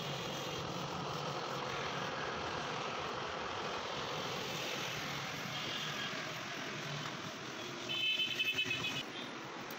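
Steady background traffic noise from a street. A brief, high, wavering tone comes in about eight seconds in.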